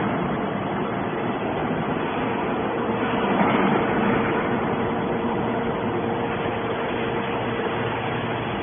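Steady running noise of a moving vehicle, with a faint constant hum.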